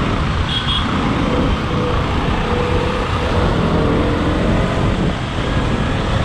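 Riding a KTM Duke 125 motorcycle through city traffic: the single-cylinder engine running under a steady rush of wind buffeting on the microphone, with the traffic around it.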